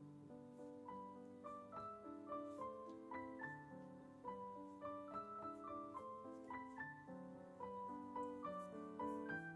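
Background piano music: a melody of short notes, several a second, over held lower notes.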